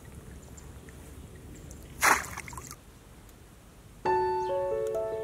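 Faint steady outdoor background, a brief loud rush of noise about two seconds in, then piano music with single decaying notes starting about four seconds in.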